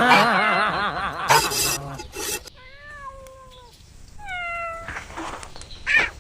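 A cat meowing: a long wavering cry at the start, then two shorter, separate meows in the middle.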